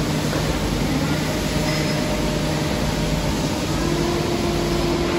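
Heyligenstaedt Heynumat 21U CNC lathe running with a steady mechanical hum and noise. A faint tone in it steps up a little in pitch about three-quarters of the way through and holds.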